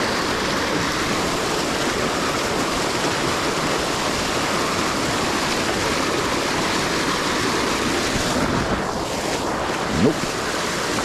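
Steady rush of swift, rain-swollen river water churning white over rocks and a concrete edge. A brief knock about ten seconds in.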